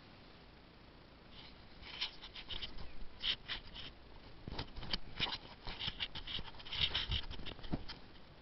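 Camera handling noise: irregular scratchy clicks and rubbing with a few soft, muffled knocks, starting about a second and a half in and dying away near the end.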